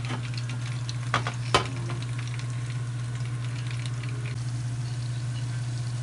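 Lumpia (spring rolls) frying in hot oil in a pan: a steady sizzle with fine crackling, over a steady low hum. Two sharp clicks come a little over a second in.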